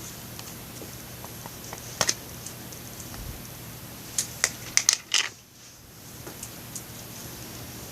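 Slime being squeezed and played with by hand, giving sharp clicks and pops. There is one pair about two seconds in, then a quick run of louder ones between about four and five seconds in.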